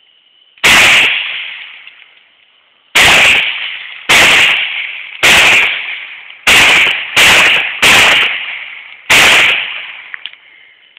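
CZ-52 pistol firing 7.62x25mm Tokarev, one-handed: eight shots. One shot, then after about two seconds seven more spaced a second or less apart. Each loud crack clips the phone's microphone and rings off over about half a second.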